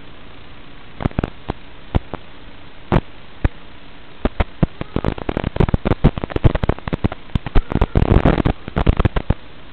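Steady static hiss broken by irregular crackling pops, a few scattered ones at first, then a dense burst of crackle in the second half. This is the sound of a weak or breaking-up analog FPV video link heard through the receiver's audio channel.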